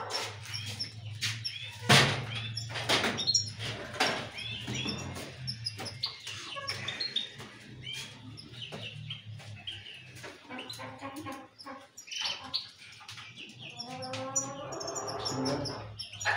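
Many caged goldfinches and canaries chirping and twittering in quick, overlapping calls. A sharp knock comes about two seconds in, and a few lighter clicks follow over the next seconds, over a low steady hum.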